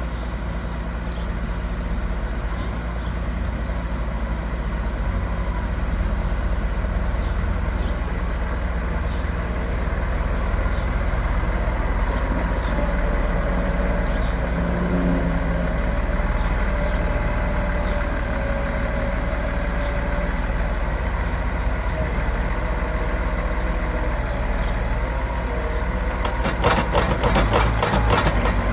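Heavy farm vehicle engine running steadily under load, with a whine that wavers up and down through the middle and a short rattling clatter near the end.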